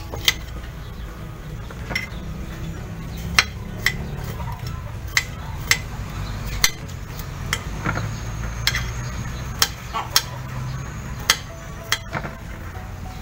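Kitchen knife clicking against a ceramic plate as garlic and shallots are cut on it: sharp separate clicks, roughly one or two a second, over a low steady rumble.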